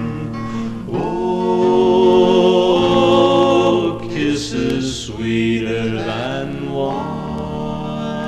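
Music: a vocal group singing long, held notes in harmony with vibrato, the closing bars of a 1960s folk-pop song.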